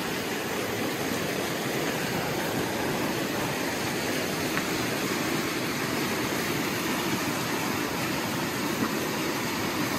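Steady rush of a flowing mountain creek.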